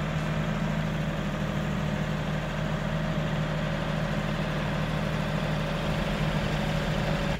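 Kioti NX6010 tractor's diesel engine running at a steady, even speed as the tractor creeps along carrying a heavy hunting blind on its front loader.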